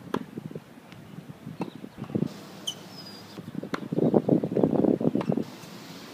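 Sharp pops of a tennis ball struck by a racket and bouncing on a hard court, about one every second or two, with wind buffeting the microphone in a gust about four seconds in.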